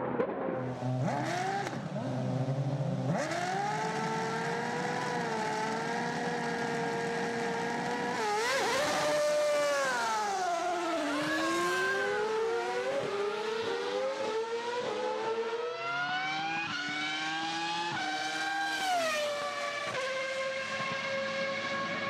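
Formula One car engine at racing revs, its pitch gliding up and down. About ten seconds in the note falls away as the car slows and shifts down, then it climbs in a run of quick rises, each cut by a sharp drop at an upshift, before holding a steady high note near the end.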